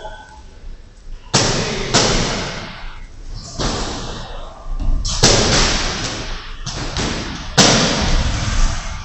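Boxing gloves landing punches and boxers' feet hitting the ring canvas: a run of sharp thuds, about eight, each ringing on briefly in the hall.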